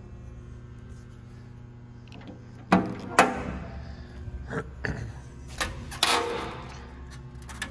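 Sheet-metal guard doors on a Wellsaw 1318 horizontal bandsaw being swung and latched shut: a series of sharp metal clanks and bangs with ringing, the two loudest about three seconds in. A steady low hum underneath.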